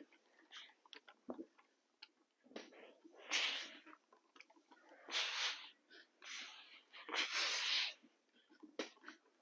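Hose-fed steam iron hissing in several short bursts of steam, each under a second long, as it is pressed onto cotton fabric.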